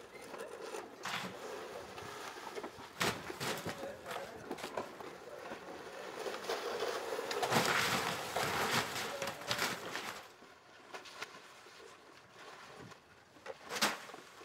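Roofers tearing off old asphalt shingles with tear-off shovels: scraping and rustling with scattered knocks, growing louder about seven to ten seconds in as stripped shingles slide off the roof edge. A single sharp knock comes near the end.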